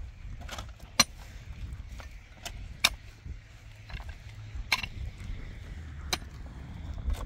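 Metal digging tool striking stony, rocky soil: sharp clinks and knocks, about six of them, irregularly spaced a second or so apart, over a steady low rumble.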